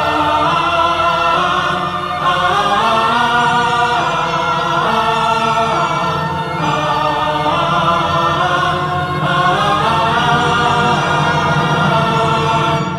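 Background music: a choir singing long, sustained vocal lines over a steady low accompaniment.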